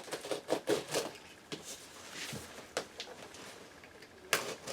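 Hands opening a shipping box and handling its packing material: irregular rustles, scrapes and crinkles, with a louder rustle near the end.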